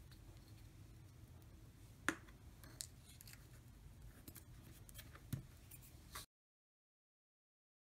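Faint handling of a glue stick and a paper cutout being pressed onto a sheet, giving a few light, sharp clicks and taps, the loudest about two seconds in. The sound cuts off to dead silence about six seconds in.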